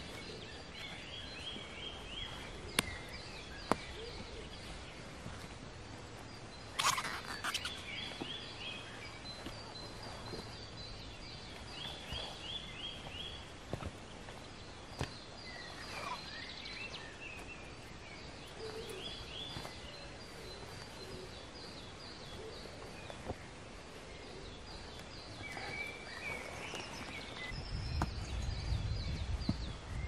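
Small songbirds singing in the forest: short, quick runs of high notes repeated every few seconds. A brief rustle cuts in about seven seconds in, and a low rumbling noise builds up near the end.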